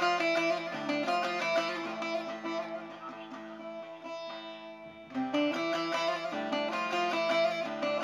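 Bağlama (Turkish long-necked saz) played solo in an improvisation: quick plucked and strummed notes over a steady drone. Around the middle the playing thins to a few ringing notes, then it picks up loudly again at about five seconds.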